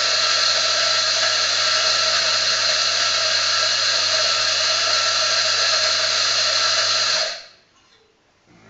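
Mazzer Mini E flat-burr coffee grinder running steadily, with a low hum under its noise, as it grinds a programmed timed dose into an espresso portafilter. It cuts off sharply about seven seconds in when the burst ends.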